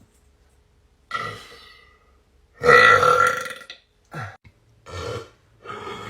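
A series of about five human burps: one about a second in, the longest and loudest a little before three seconds in lasting about a second, a short one after it, and two more near the end.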